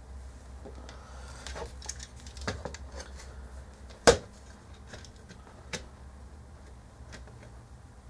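Small clicks and taps of a plastic front panel and its display circuit board being handled as the board is worked loose. The loudest is one sharp click about four seconds in, with another smaller click near six seconds.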